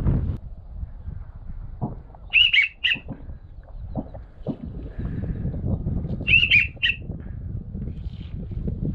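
Duck whistle call blown in two short sets of about three quick rising-and-falling whistled notes, some four seconds apart, over a low rustle and a few soft knocks.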